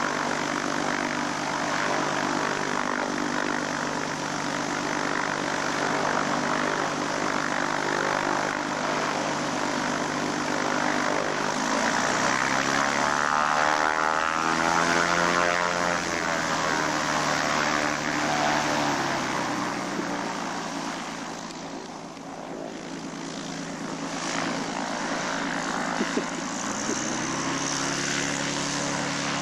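Single-engine propeller airplane's piston engine running as the plane taxis away on a gravel strip. The engine note climbs and bends in pitch around the middle, drops off and grows fainter, then picks up again near the end.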